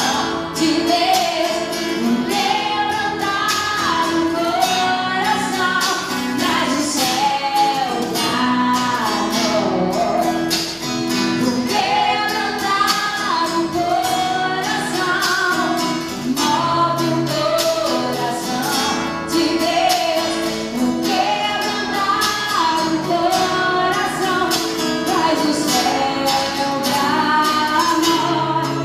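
Live gospel band music with a woman singing the melody over a steady beat.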